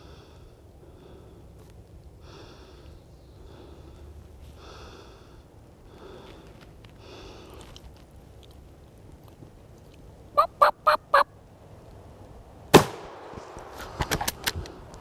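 Wild turkey gobbler giving one loud, close rattling gobble. About two seconds later comes a single loud shotgun blast that rings off, then a quick cluster of sharp thumps as the shot bird flops.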